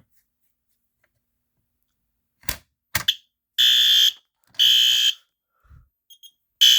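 A couple of sharp clicks as a fire alarm pull station is pulled down. Then a System Sensor fire alarm horn strobe sounds in loud, high, buzzy half-second blasts: two close together, a pause, and another pair starting near the end.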